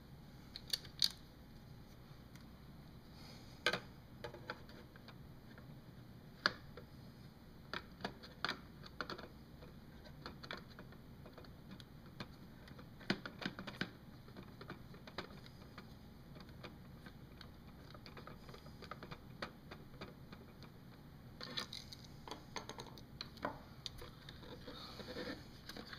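Scattered small clicks and ticks of a screwdriver and hands working on a plastic clock-radio case as small screws are backed out and the parts handled, coming thicker near the end.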